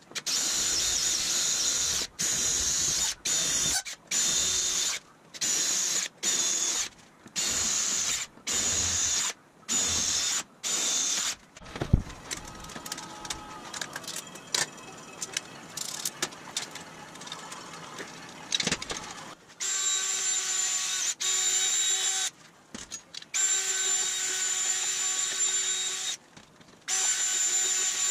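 Cordless drill boring a row of holes through thin aluminum sheet: about nine short runs of roughly a second each, one after another. A quieter stretch of handling knocks and clicks follows. Then come several longer runs with a steady whine, the drill working the hole edges, which are being chamfered.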